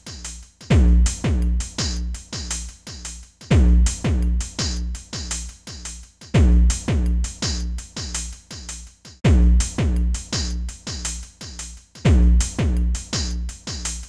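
Electronic background music with a drum-machine beat: a heavy bass hit with a falling pitch about every three seconds over a quick, steady pulse.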